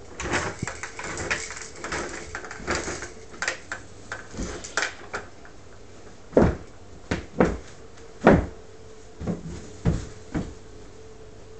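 A toddler's footsteps thudding and crinkling on a thin foam floor-underlay sheet, with busy rustling at first, then separate louder thumps about once a second, the loudest about eight seconds in.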